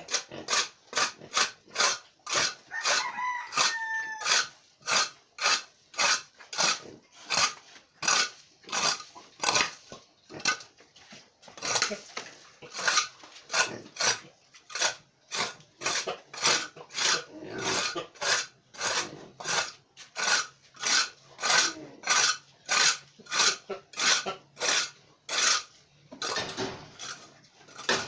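Rhythmic scraping strokes, about two to three a second, of a hand tool working the floor of a pig pen. A rooster crows briefly about three seconds in.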